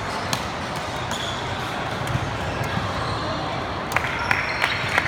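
Badminton rackets striking a shuttlecock in a doubles rally: one sharp hit early on, then a quick flurry of hits a few tenths of a second apart from about four seconds in, with a few short shoe squeaks. Steady hall chatter underneath.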